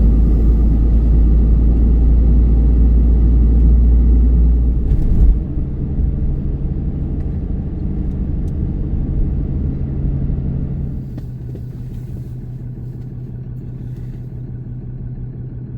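Pickup truck driving, engine and road rumble heard from inside the cab. The low rumble is heaviest for the first five seconds or so, then eases, leaving a steadier engine hum.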